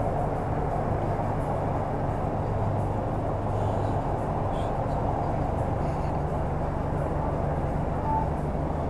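A steady, low engine hum that holds an even level throughout.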